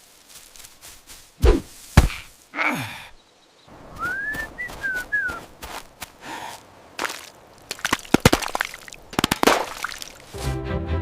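Scattered knocks and thuds with clusters of quick clicks, and a short chirping call of a few rising-and-falling notes about four seconds in; music comes in near the end.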